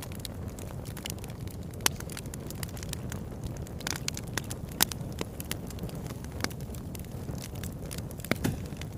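Fire in a fireplace, crackling: a steady low rush of flames with scattered sharp pops, the loudest about two seconds in, near the middle and near the end.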